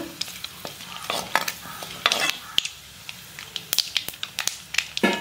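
Mustard seeds spluttering in hot oil in a kadai: irregular sharp pops over a light sizzle, with a spoon stirring in the pan. The popping is the sign that the oil is hot enough and the tempering is ready for the next spice.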